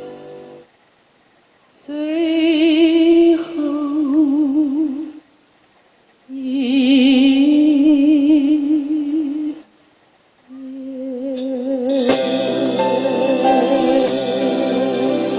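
Background music: a slow melody of held notes with vibrato in three phrases, separated by short silences, opening out into a fuller accompaniment about twelve seconds in.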